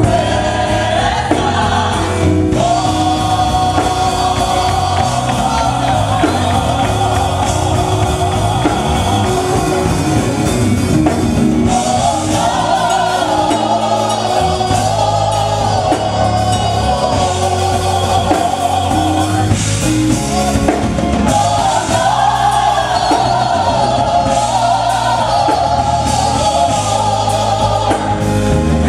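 Gospel choir singing over music with a steady drum beat.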